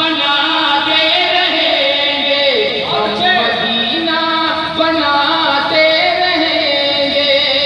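Male voice singing an Urdu naat through a microphone and PA system, holding long notes that glide and waver melismatically.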